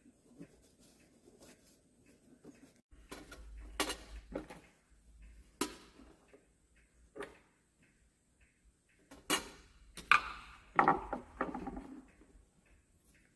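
Clicks, scrapes and knocks of small metal parts and the wooden case of an old pendulum wall clock being handled as the hands are taken off and the dial is worked loose. The sounds are scattered, and the loudest run of knocks comes about ten to twelve seconds in.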